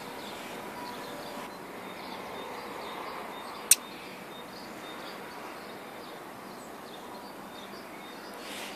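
Outdoor ambience: a steady background hiss with faint, scattered bird chirps, and a single sharp click a little before halfway through.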